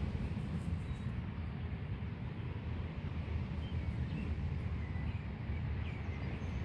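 Outdoor ambience: a steady low rumble with faint bird chirps scattered through it.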